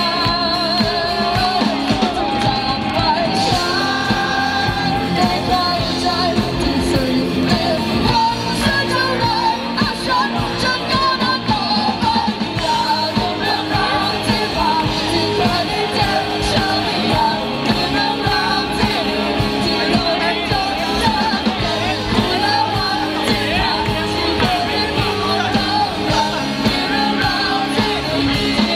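A boy singing lead into a microphone over a live rock band with electric guitar and drums, continuously and loud.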